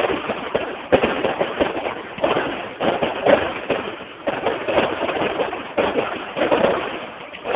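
Aerial fireworks going off in a quick series of bangs, about eight in the space of seven seconds, each fading away with a rumbling echo.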